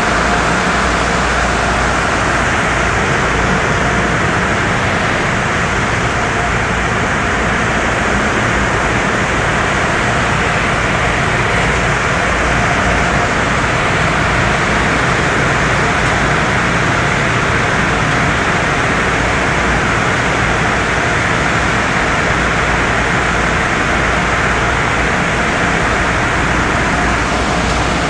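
Steady running noise of a tunnel car wash: water spraying onto a vehicle and cloth wrap brushes spinning against it, with a low machinery rumble underneath.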